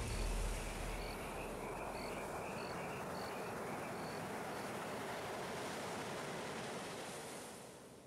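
Outdoor ambience sound effect: a steady rushing noise with short high chirps roughly every half second to a second in the first half, fading out near the end.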